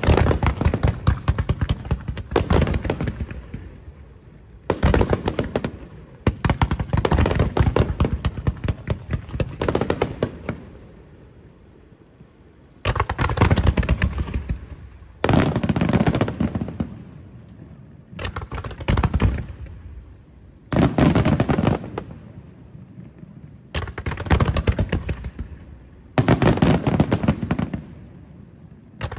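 Fireworks display in its final program: about ten barrages of shells bursting, each a dense rattle of bangs lasting one to a few seconds, with short lulls between them.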